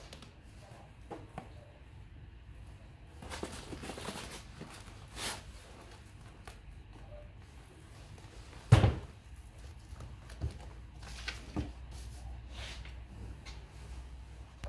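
Handling of a foil-faced fire-resistant document wallet and paper slips: rustling and soft knocks, with one sharp, louder thump about nine seconds in.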